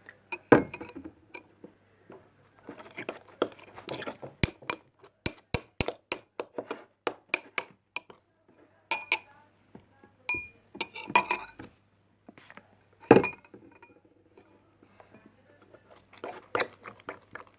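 A spoon clinking and knocking irregularly against a bowl while stirring glue slime that has been sprayed with borax water, some taps ringing briefly. There is a pause about eight seconds in and another shortly before the end.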